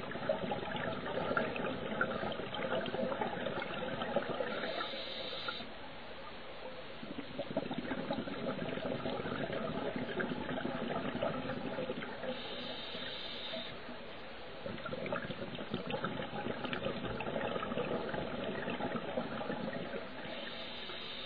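Scuba diver breathing through a regulator underwater: long stretches of bubbling exhaust bubbles that ease off and return in a slow cycle, with a short hiss of the regulator three times, about eight seconds apart.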